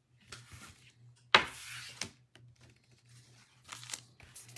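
A foil-wrapped trading-card pack and cards being handled. There is one sharp rip of the wrapper about a second and a half in, trailing off in a short rustle, with softer rustles before and after.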